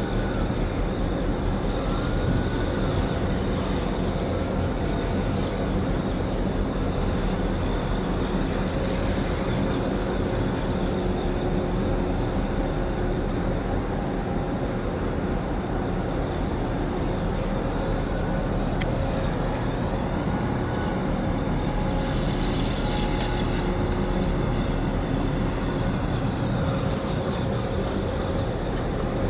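Steady low drone of ship engines under a wash of wind and water noise, with a few brief hisses in the second half.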